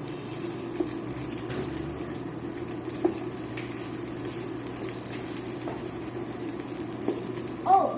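Rice and Spam frying in hot oil in a pan, sizzling steadily while being stirred, with a few light clicks of the utensil against the pan.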